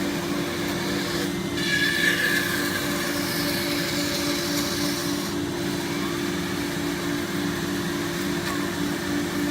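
MultiCam MG-204 CNC router running, its spindle giving a steady hum while the machine cuts parts out of thick foam. Short rising and falling whines come in here and there, about two seconds in and again near the end.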